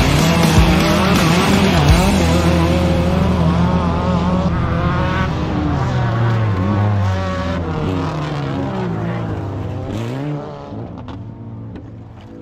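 Autocross race cars' engines revving hard and easing off as they race past on a dirt track, the pitch rising and falling with throttle and gear changes. The sound fades away over the last two seconds.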